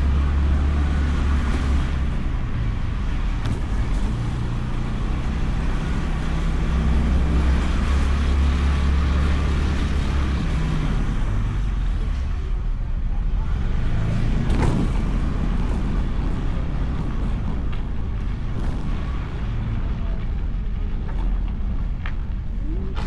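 Honda Beat scooter's single-cylinder engine running under way, with road and air noise over a bike-mounted camera. The engine note is strong and steady for the first ten seconds or so, then eases off, with one short sharp knock about fifteen seconds in.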